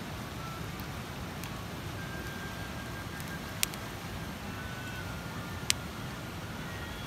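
Wood campfire burning with a steady low rumble, and two sharp crackling pops from the burning wood, one just past halfway and one near the end.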